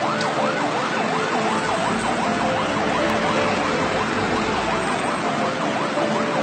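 Ambulance siren in a fast yelp, a rising-and-falling wail that repeats about three times a second, over the steady rush of heavy traffic.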